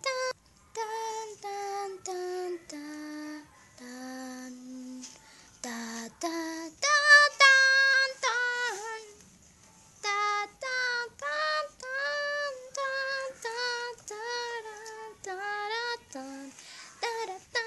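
A child singing a tune in short held notes, phrase after phrase with brief pauses between them.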